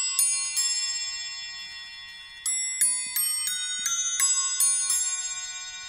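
Camerer Kuss triple fusee clock movement playing its quarter chime on a nest of eight bells: hammers lifted by the pinned barrel strike the bells one after another, each note ringing on. Two notes open the chime, then after a pause of about two seconds a quicker run of strikes follows.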